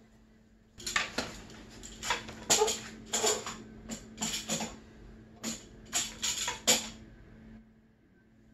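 Irregular metallic clanks and knocks as the rebuilt snowmobile engine is shifted and set into its chassis, stopping shortly before the end.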